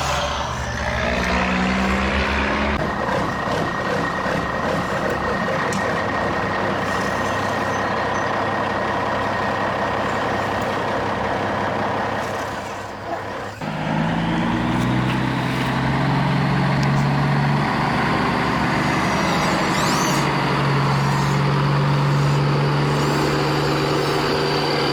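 Radio-controlled construction truck and excavator running, with a steady truck-engine-like sound and a thin steady whine. The sound dips and changes abruptly a little past halfway, then carries on with a different engine note.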